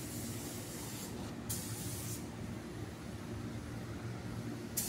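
Steady hissing background noise with a low hum underneath, and one short click near the end.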